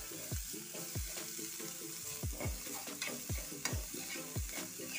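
Dried fish frying in coconut oil in a non-stick pan, being fried until it browns. The oil sizzles steadily while a metal spoon stirs and scrapes the flakes around in repeated strokes, about two a second.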